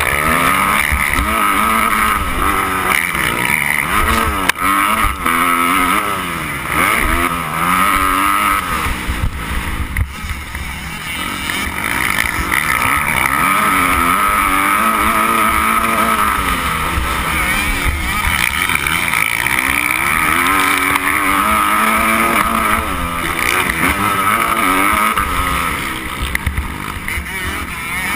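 Motocross bike engine under hard throttle, its pitch rising and falling over and over as the rider accelerates, shifts and backs off around the track. A rough rumble of wind buffeting the camera microphone runs underneath.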